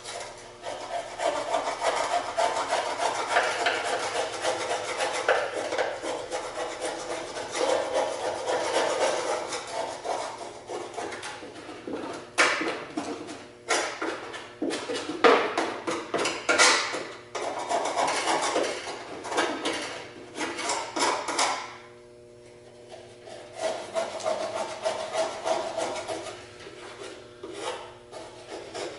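A hand scraper rasping against the underside of a lawn mower deck, scraping off dried grass in repeated strokes. A brief pause comes about two-thirds of the way through, then quieter scraping.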